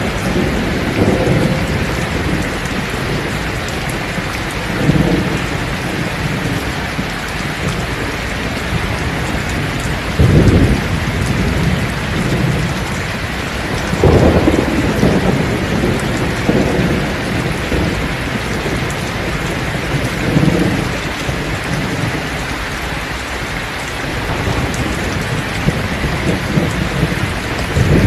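Heavy rain pouring steadily onto a thatched roof, with repeated low rolls of thunder swelling and fading every few seconds; the strongest come about ten and fourteen seconds in.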